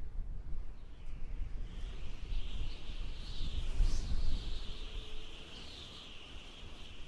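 Nature ambience: a dense chatter of birds chirping, building about a second and a half in, over a low rumble.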